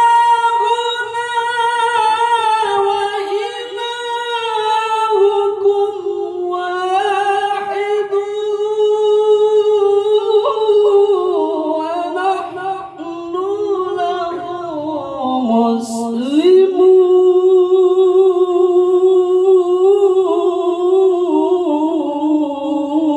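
A qari's voice in melodic Quran recitation (tilawah), drawing out long, high held notes with wavering ornaments. About two-thirds of the way through, the voice dips low and then slides back up, and a single sharp click is heard.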